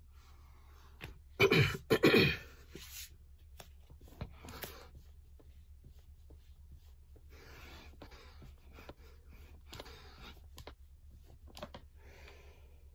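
A man sneezes twice in quick succession, loudly, then breathes out hard in short puffs every couple of seconds while doing push-ups.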